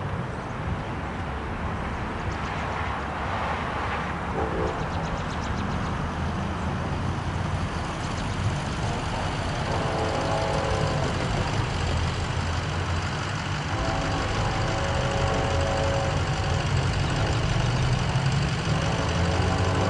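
Steady low engine rumble with cars passing on the road, getting a little louder toward the end.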